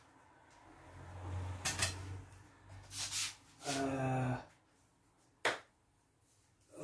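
A man's low wordless hums and a soft rustle, with two sharp clicks, one about two seconds in and one near the end.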